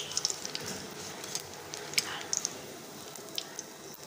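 Batter-coated pumpkin flower pakoras deep-frying in hot mustard oil in a kadhai, the oil sizzling with scattered sharp pops and crackles.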